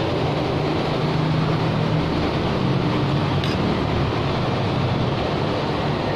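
Steady rumble and hiss of road traffic, with a light clink of a metal spoon on the plate about three and a half seconds in.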